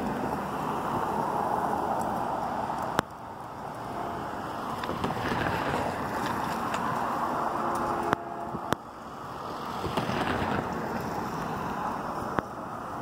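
Wind buffeting the microphone, a rushing noise that swells and eases, with a few sharp clicks about three, eight and twelve seconds in.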